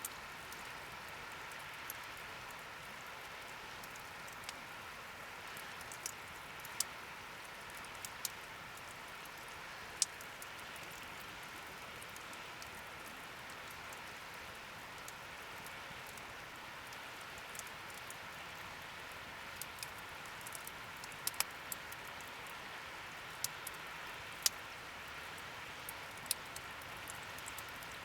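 Wood fire burning in a fire pit: a steady hiss with scattered sharp crackles and pops, more frequent in the last third.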